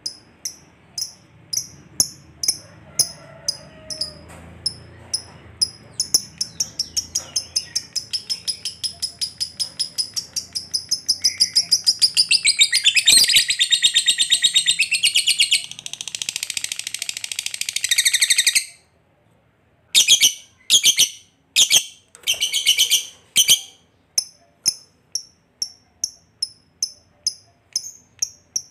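Lovebird calling: a run of sharp high chirps about two a second that quickens and breaks into a long, fast chattering trill (the ngekek) lasting about seven seconds, which stops abruptly. After a pause of about a second come a few louder bursts, then the steady chirping resumes.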